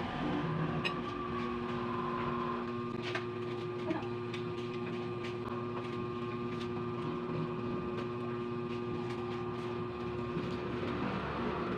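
Someone chewing crispy fried pork belly, with a few short crunches, over a steady machine hum.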